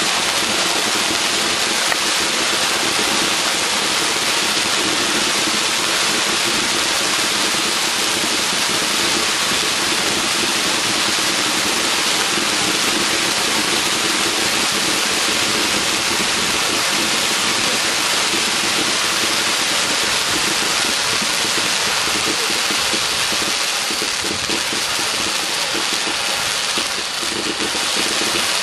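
Ground firework fountain spraying sparks with a steady, rushing hiss, unbroken by bangs.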